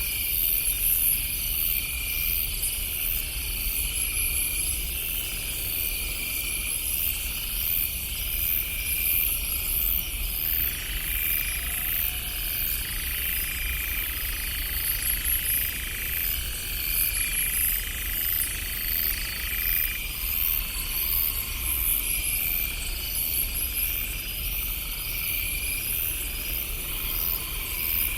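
Night insects, crickets among them, chirping in steady repeating pulses over a low rumble. A faint distant train horn sounds for about ten seconds in the middle.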